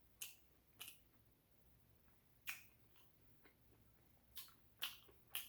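Close mouth noises of someone eating spaghetti and meatballs: about six short, wet clicks and lip smacks at irregular intervals while chewing.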